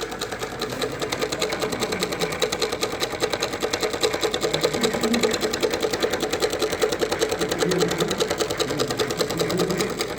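A small machine running with a rapid, even mechanical clatter.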